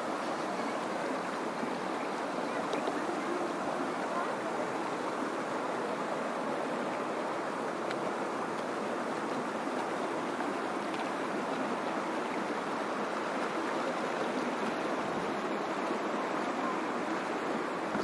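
Shallow river rushing over stones in a steady, even stream of water noise.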